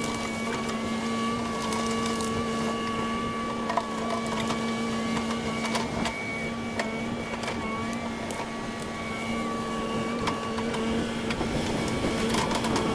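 Kubota KX080 excavator running steadily: a constant diesel hum with a higher whine that dips briefly now and then, and scattered sharp knocks.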